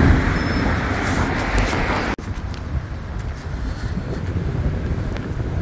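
Road traffic: the noise of a car going by fades over the first two seconds, then drops abruptly to a quieter, steady hum of street traffic.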